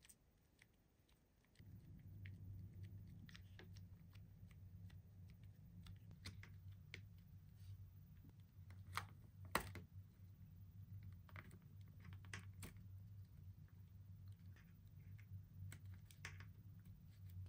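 Faint, scattered clicks and taps of fingernails and fingers on a plastic clay mold and paper as the clay is pressed into the mold, with one sharper click about ten seconds in. A low steady hum starts about two seconds in and stays underneath.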